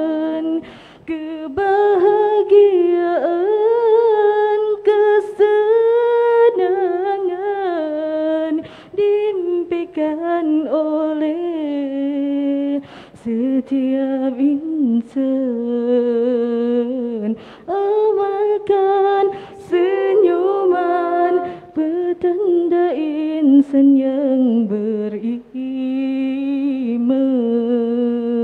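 A women's nasyid group singing a cappella into microphones, several voices together, with brief breaths between phrases.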